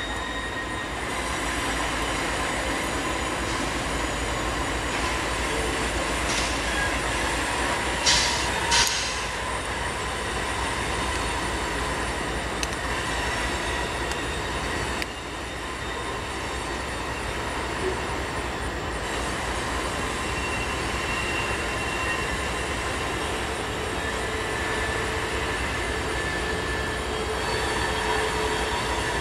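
Norfolk Southern freight train passing: diesel locomotives running and freight cars rolling in a steady rumble, with thin, steady wheel-squeal tones over it. Two brief sharp noises stand out about eight and nine seconds in.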